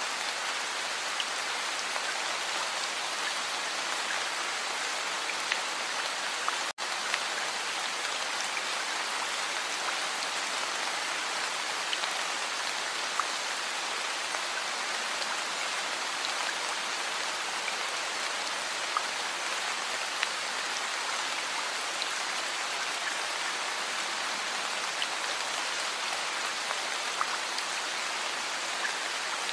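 Heavy rain falling steadily: an even hiss with scattered ticks of individual drops. The sound cuts out for an instant about seven seconds in.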